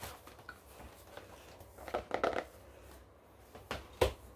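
Paper rustling and pages flicking as a paper booklet is handled close to the microphone, in a few short clusters, with a sharper knock near the end.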